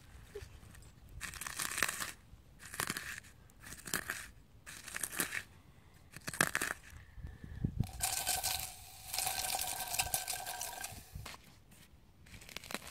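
Charcoal being crushed and ground into powder with the end of a wooden stick in a small cap: gritty crunching, scraping strokes about once a second, then a longer unbroken grind near the end.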